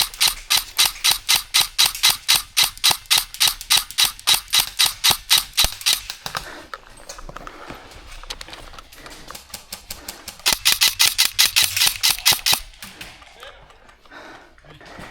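Airsoft gun firing a long rapid string of shots, about six or seven a second, for roughly six seconds. A second string follows about ten seconds in, with fainter scattered shots between the two strings.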